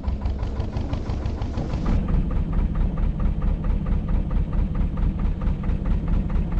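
Narrowboat's diesel engine running at cruising speed with a steady, rapid chugging beat, louder from about two seconds in.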